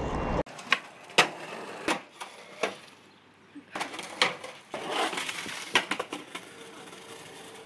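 Skateboard clattering on asphalt after a fall: a string of sharp clacks and knocks as the board hits the ground.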